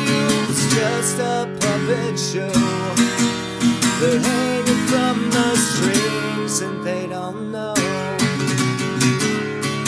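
Instrumental song break: acoustic guitar strumming chords, with a melody line on top that bends in pitch.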